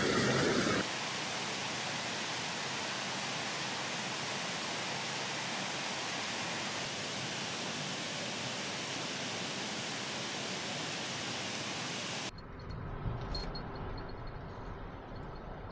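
A steady, even rushing noise that cuts off abruptly about twelve seconds in. It gives way to a quieter outdoor background with faint high-pitched chirps.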